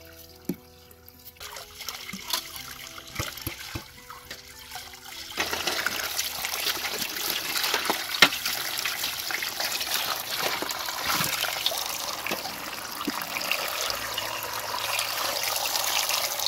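A few light clicks and taps, then about five seconds in, water from a pipe starts splashing into a metal colander, running steadily while hands rinse peeled potatoes in it, with an occasional sharp knock against the colander.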